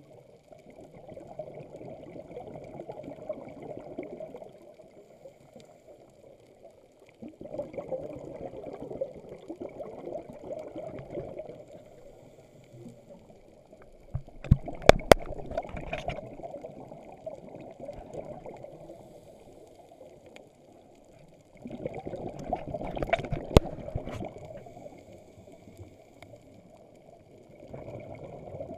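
Scuba regulator exhaust bubbles gurgling and rushing past an underwater camera in bursts about every seven seconds, with quiet pauses between as the diver breathes in. A few sharp clicks sound during two of the bursts, around the middle and two-thirds of the way through.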